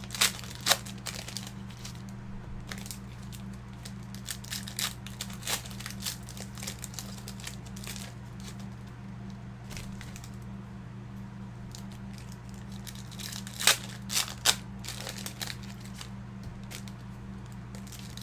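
Crinkling and rustling of trading-card packs and cards being handled, with scattered sharp clicks and a few louder ones about three-quarters of the way through. A steady low hum runs underneath.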